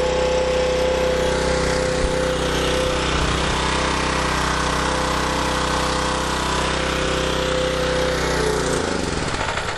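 Portable gasoline generator engine running steadily under a 500-watt halogen light load, then slowing and dying near the end as its small measured fuel charge runs out.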